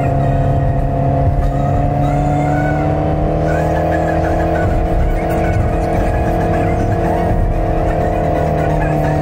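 Mercedes V8 car engine running at a steady cruising speed: an even drone with road rumble, its pitch creeping up slightly a few seconds in and easing near the end.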